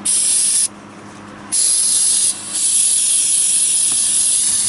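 Aerosol carburetor cleaner spraying in bursts into a varnished, dirty motorcycle carburetor: a short hiss, a pause of almost a second, then longer spraying with one brief break.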